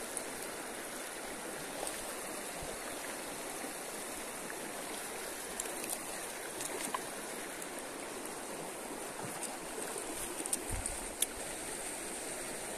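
Stream water rushing steadily, an even running noise, with a few small sharp clicks in the last few seconds.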